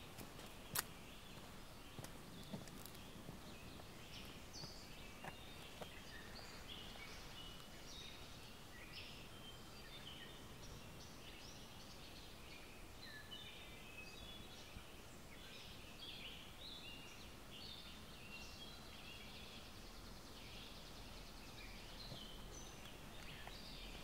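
Wild birds singing faintly, many short high chirps and phrases scattered throughout, over a soft steady background hiss. A few light clicks sound in the first few seconds.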